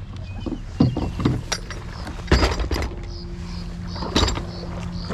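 Kayak paddling: a few sudden splashes and knocks of the paddle, the loudest about halfway through, over a steady low rumble.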